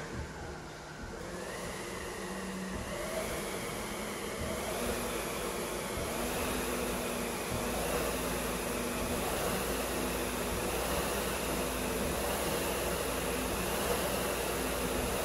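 Concept2 SkiErg air flywheel whirring under repeated pulls, rising in pitch and loudness over the first few seconds as it spins up from rest, then running steadily.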